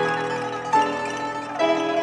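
Pipa and grand piano playing together: plucked pipa notes over piano chords, with a new note or chord about every three-quarters of a second.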